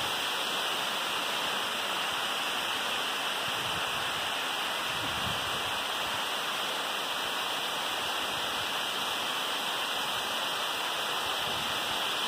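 Waterfall cascading down a steep rock face: a steady, even rush of falling water.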